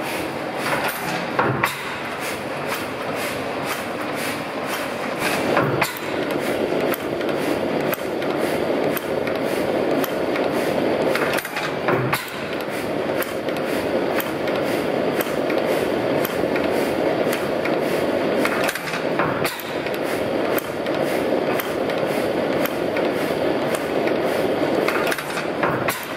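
Old Tangye stationary engine running, its valve gear clicking in a steady rapid rhythm, with a louder knock about every six to seven seconds.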